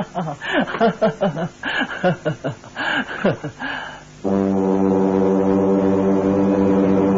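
Voices talking, then about four seconds in a deep brass horn comes in abruptly and holds one low, steady note.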